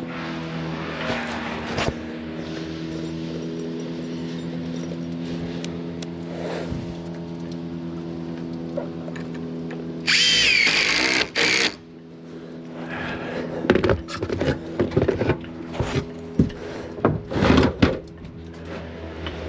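A power drill or driver runs in a loud whining burst of under two seconds, about halfway through. After it comes a run of sharp knocks and clatter of timber work. Under it all a machine hums steadily.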